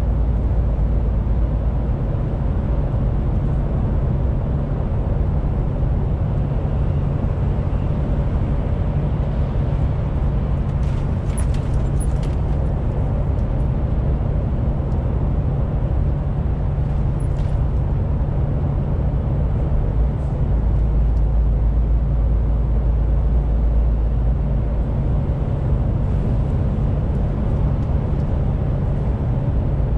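Cab-interior sound of a MAN TGX 18.470 truck cruising: the steady low drone of its 12.4-litre straight-six diesel together with tyre and road noise. A few faint ticks come through about midway.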